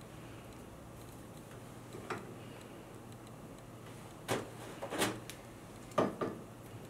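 A few short, sharp clicks and taps of small metal jewellery work: pliers and a jade pendant's metal setting knocking against a wooden bench pin. The taps are spaced irregularly, with the loudest about a second before the end, over a faint steady hum.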